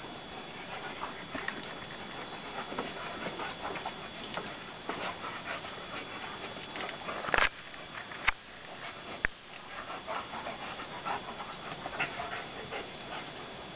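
Two German Shepherds panting as they sniff and play, with scuffling and short clicking sounds from their movement on brick pavers; a few louder sharp sounds come about halfway through.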